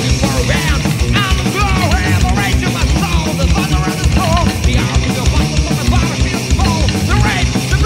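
Heavy metal music in an instrumental passage: a lead line that bends and wavers in pitch over a fast, driving drum beat.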